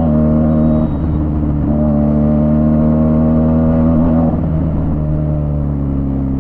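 Motorcycle engine running at a steady pitch, dipping briefly about a second in and again at about four seconds.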